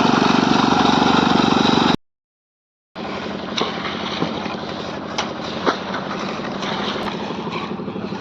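Engine of road-construction machinery running steadily. It breaks off for about a second, then a quieter machine running sound resumes with several sharp knocks scattered through it.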